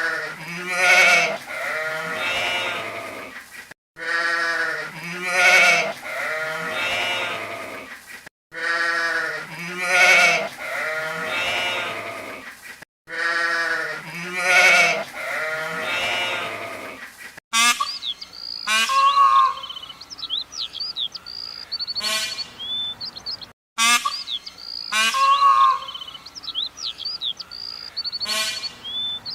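Bleating livestock: wavering calls, the same few seconds repeated four times. About two-thirds of the way in, it changes to a different clip of short, high chirping calls, repeated twice.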